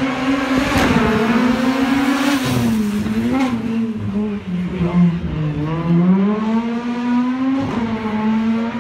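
Rally car racing past close by with a rush of noise, then accelerating away down the road. Its engine pitch dips about halfway through, climbs steadily again, then drops suddenly near the end.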